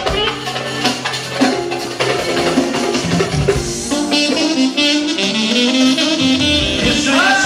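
Band music: a melody instrument playing a winding tune over a steady drum beat.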